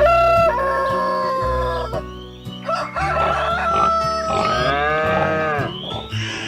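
Rooster crowing several times over background music with a steady bass line, with one long crow that rises and falls about five seconds in.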